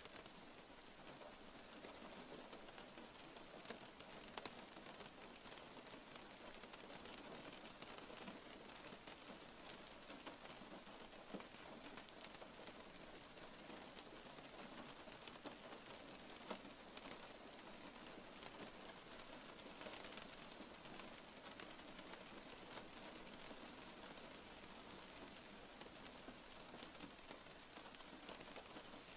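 Steady rain: a soft, even hiss with scattered faint drop ticks.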